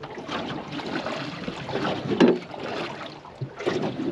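Water lapping and slapping against the hull of a small aluminium boat, with wind on the microphone and an uneven louder knock about two seconds in.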